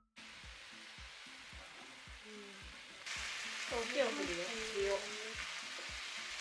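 Sliced potatoes and onions sizzling in olive oil in a frying pan as they are stirred, a steady frying hiss that gets louder about three seconds in.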